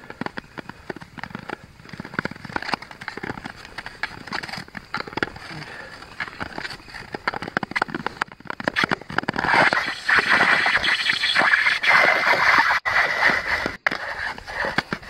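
Nordic touring skate blades gliding and scraping over clear, thin lake ice, with a steady crackle from the blades. The scraping grows louder and denser about two-thirds of the way in.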